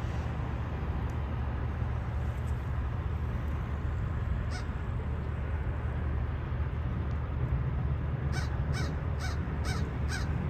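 A crow cawing, about six short harsh caws in quick succession starting near the end, over a steady low background rumble.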